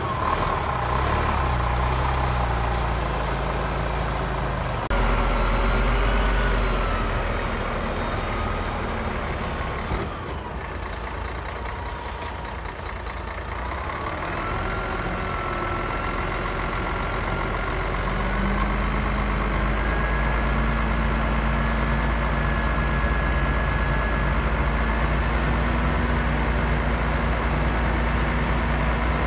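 Heavy diesel engines of earthmoving machinery running, their pitch rising and falling. Four short hisses of air come in the second half.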